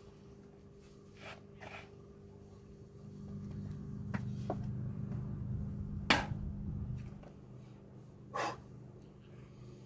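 A man breathing hard in short puffs from the effort of pushing himself upright on forearm crutches, with a sharp knock about six seconds in, over a steady low hum.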